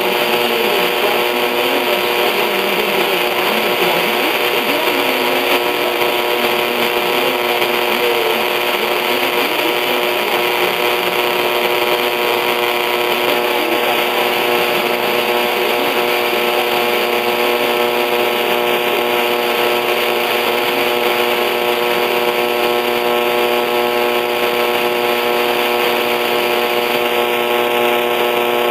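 Distant AM station on 1260 kHz heard through a mini stereo system's AM tuner, with the programme faded down under loud, steady static hiss and a buzz of interference tones. Faint wavering traces of the station's audio show through during the first few seconds.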